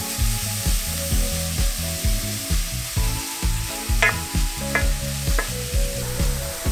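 Diced onion and oyster mushrooms sizzling in a stainless steel frying pan. A wooden spatula scrapes and knocks against the pan a few times, about four to five and a half seconds in. Background music with a steady beat plays underneath.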